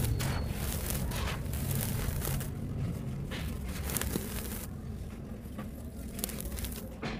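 Dry, dusty lumps of reddish earth crumbled in the hands and poured back down, a gritty rustle with small crackles as the grains fall. A low rumble lies beneath, strongest at the start.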